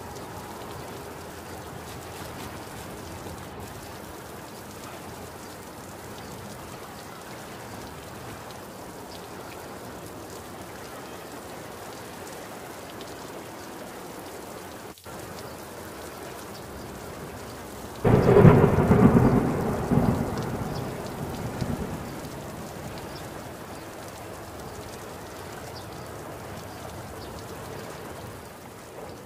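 Steady rain falling, with one sudden loud thunderclap about two-thirds of the way through that rumbles and fades away over a few seconds.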